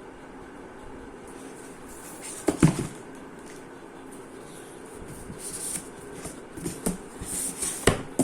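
A keyboard and its packaging being handled during an unboxing: a sharp knock about two and a half seconds in, then rustling and small knocks and clicks, with another sharp knock near the end.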